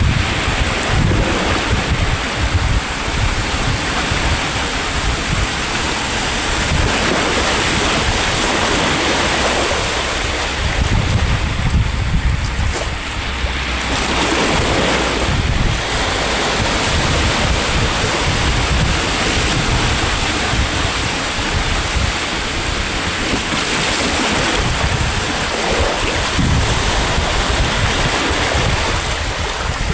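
Sea waves breaking and washing on the shore in a continuous, loud surf, with wind buffeting the microphone.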